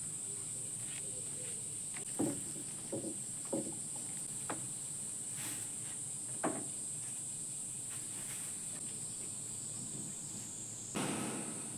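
Summer insects making a steady high-pitched drone, with a few light knocks from about two to six and a half seconds in and a brief rustle near the end from someone handling things on the deck.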